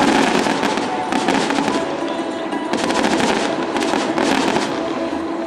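Fireworks crackling and popping in rapid clusters, about four volleys, over music.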